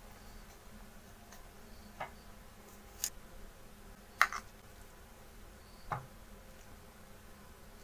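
A metal ladle clinking against a hot pot and a small bowl while serving broth and cabbage: four separate light clinks, the loudest a little after four seconds in, over a faint steady hum.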